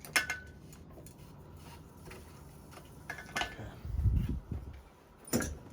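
A few sharp clicks and clinks and one dull low knock about four seconds in, from the metal parts of a RockShox Judy suspension fork being handled during disassembly.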